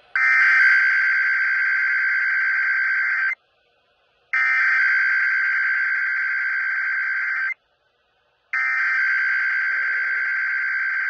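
Emergency Alert System SAME header: three bursts of data tones, each about three seconds long with about a second of silence between. They encode the start of an EAS required weekly test.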